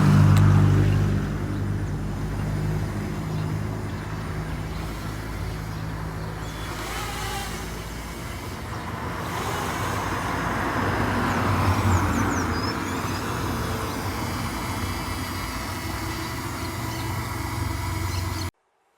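Steady road traffic noise with a low engine hum, cutting off abruptly near the end.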